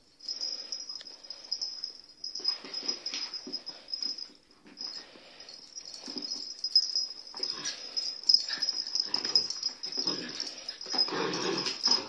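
Dogs at play: a thin, high-pitched whining that runs with short breaks, over snuffling and scuffling bursts that grow loudest in the last second or two.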